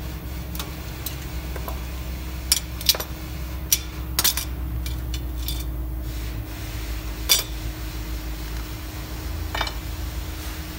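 Pliers and steel drum-brake shoe parts clinking as they are handled and set down: several sharp metallic clinks, the loudest about seven seconds in, over a steady low hum.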